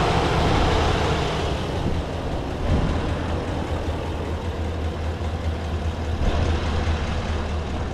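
2016 Chevrolet 2500 HD pickup's engine idling steadily, heard from the open engine bay as a low, even hum.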